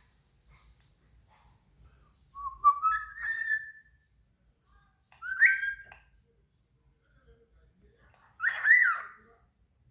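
A bird giving three loud whistled calls a few seconds apart, each a short phrase that slides upward in pitch.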